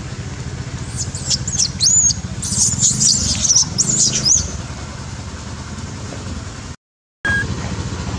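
Infant long-tailed macaque screaming in a rapid string of high-pitched, gliding squeals for about three and a half seconds, over a steady low engine drone. The sound cuts out briefly near the end.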